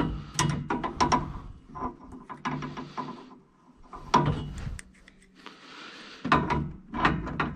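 Irregular metallic clicks and knocks of hands and a tool working on the gas line fitting at a furnace's gas valve, with two short quieter pauses around the middle.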